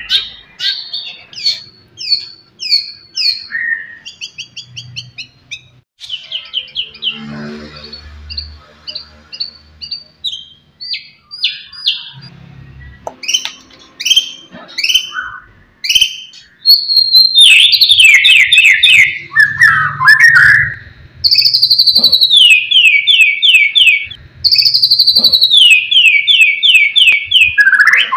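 White-rumped shama singing a varied song of whistled notes and fast trills. About halfway through it breaks into loud, rapid runs of repeated descending notes.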